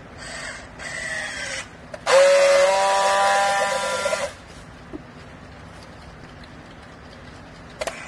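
Battery-powered handheld strapping tool on a plastic baling strap: two short motor whirs as it tensions the strap, then a loud, steady buzz of about two seconds as it friction-welds the strap's seal. A few light clicks follow.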